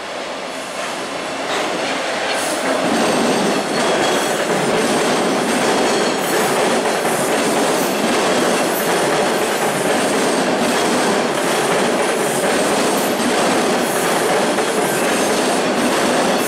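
TTC T-1 subway train running past on open track, getting louder over the first three seconds and then holding steady. The steel wheels click repeatedly over the rails.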